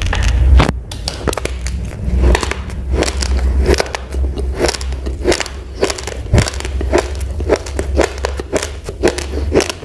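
Uncooked rice grains being chewed close to the microphone: a steady run of sharp crunches, roughly two a second, over a low rumble.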